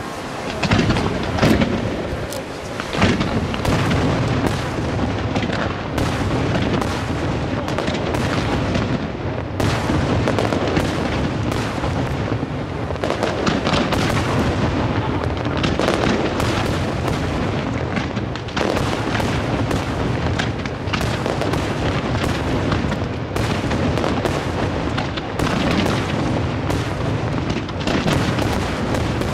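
Aerial firework shells bursting in a dense, continuous barrage of booms and sharp cracks, the reports coming fast and overlapping, loudest about a second and three seconds in.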